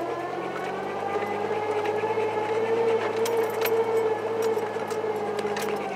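1988 Chevy S10 4x4's 2.8-litre V6 pulling under way on a dirt trail, heard from inside the cab. The engine note climbs over the first second, then holds fairly steady before easing slightly near the end, with scattered rattles and clicks from the truck.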